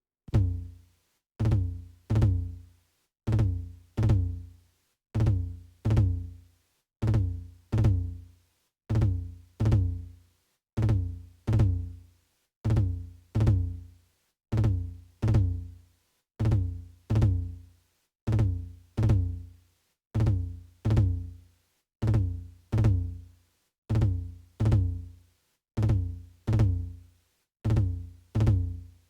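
Electronic drum-machine beat made only of deep, booming bass-drum kicks that come in pairs, a pair about every two seconds, each kick dying away to silence before the next.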